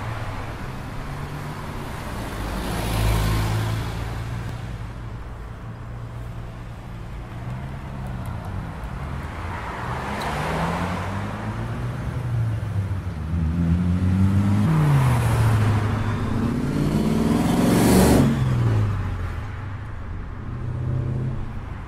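Motor vehicles passing one after another, each swelling up and fading with a pitch that bends as it goes by, the loudest a few seconds before the end, over a steady low hum of an electric skateboard rolling on pavement.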